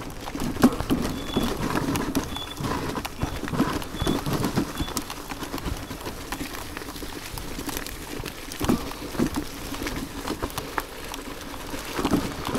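iScooter iX5 off-road electric scooter riding over a rough, leaf-strewn gravel trail: tyres crunching over stones, with the frame and handlebars rattling and knocking irregularly over bumps.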